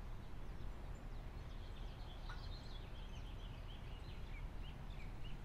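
Birds chirping faintly outdoors, a quick run of short high chirps starting about a second and a half in, over a low steady rumble.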